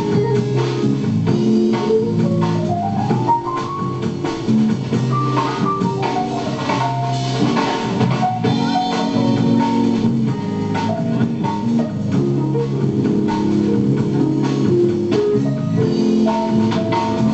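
Live jazz band playing: drum kit with guitar and keyboard. A run of notes climbs steadily about two seconds in.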